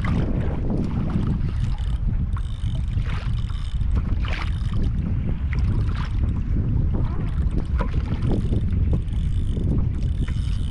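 Wind buffeting the microphone at sea, a steady low rumble, with water moving against a kayak's hull. A few faint short sounds come through above it.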